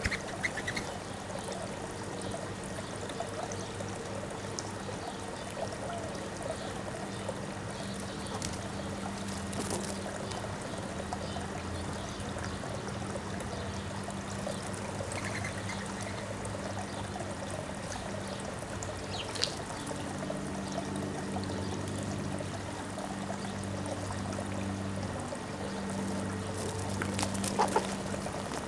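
Backyard ambience: a steady trickling, water-like hiss over a low steady hum, with a few brief bird chirps near the start and about halfway through, and scattered light clicks, a cluster of them near the end.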